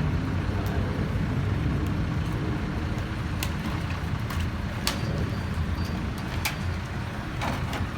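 An engine running steadily with a low rumble, with a few sharp clicks or knocks over it.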